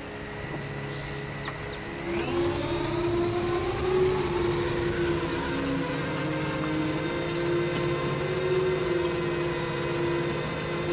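Quadcopter's electric motors and propellers, heard through the GoPro mounted on it, spinning up with a rising whine about two seconds in as it lifts off, then a steady whine as it flies.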